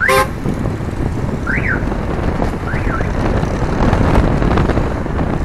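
Street noise: a steady low traffic rumble with wind buffeting the microphone. Over it come a few short chirps that rise and fall in pitch, near the start and again about one and a half and three seconds in.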